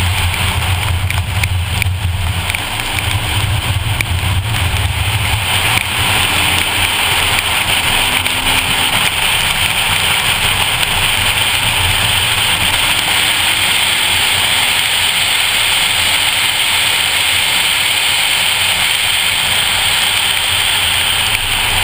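2014 Ford Focus ST's 2.0-litre turbocharged four-cylinder engine running under load on a soaked track, with a steady hiss of tyre spray and rain. The engine's low drone is strongest for the first few seconds, then eases as the water hiss takes over.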